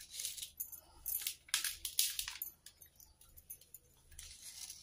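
Salt and turmeric powder being sprinkled and handled over raw fish pieces on a plate. It makes an irregular run of short, crisp rustling clicks, with a longer hiss near the end.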